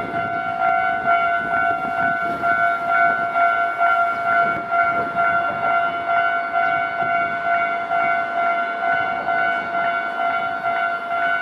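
Japanese railway level-crossing warning bell ringing steadily, about two dings a second. Beneath it a lower rumble, strongest in the first few seconds, from a train at the crossing.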